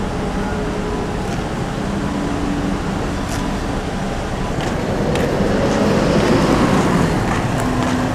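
Steady street traffic noise, growing somewhat louder about five seconds in.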